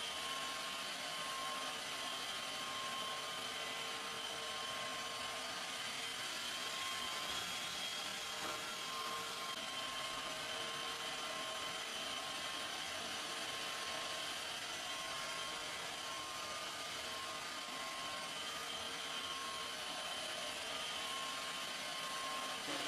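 A small electric motor running steadily, a constant whir with a high whine on top.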